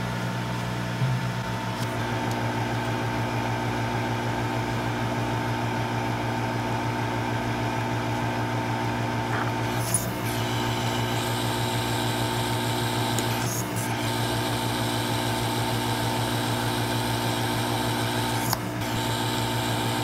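Hot air rework station blowing steadily over the board's soldered BGA RAM chips to melt their solder: a steady mechanical hum, with a higher airy hiss joining about halfway through and a few brief clicks.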